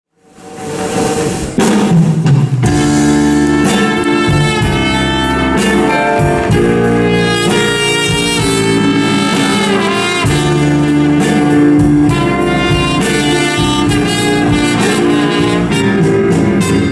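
A band plays the instrumental introduction of a song, with a drum kit keeping time. The music fades in over the first two seconds and drops away right at the end.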